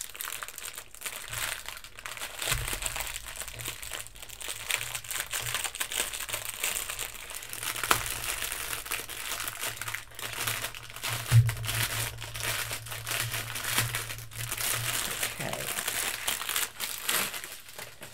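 Plastic wrap crinkling and crackling as a cling-film-wrapped bundle of diamond painting drill bags is unwrapped and handled, with one knock on the desk a little past the middle.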